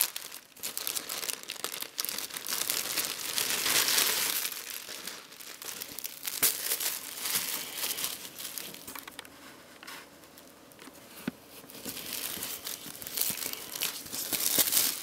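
Crinkly plastic wrapping being handled and pulled open around a folded bandana: a dense crackling that is busiest a few seconds in, eases off in the middle, and picks up again near the end.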